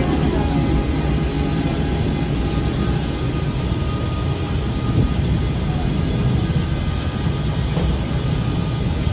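Peak Tram funicular car running on its rails: a steady low rumble.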